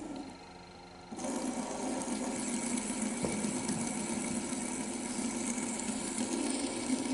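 Plastic fidget spinner spinning flat on a wooden tabletop, a steady whirring rattle that starts suddenly about a second in.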